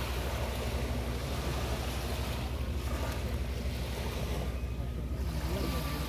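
Small waves breaking and washing up on a sandy shore, swelling and fading every couple of seconds, over a steady low rumble.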